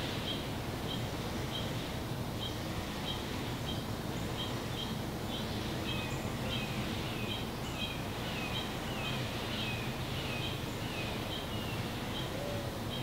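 A bird repeating short high chirps, about two a second, with a run of downward-slurred notes in the middle, over a steady low background rumble.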